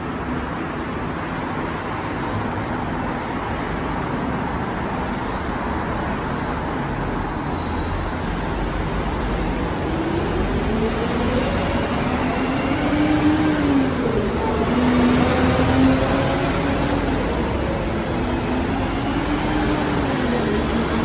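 Road traffic on a busy city street: a steady hum of passing cars and buses. From about halfway through, engine tones rise and fall.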